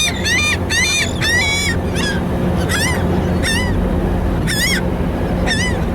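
Gulls calling over and over: a quick run of calls at first, then single calls about a second apart. Under them runs the steady low drone of the ferry's engines.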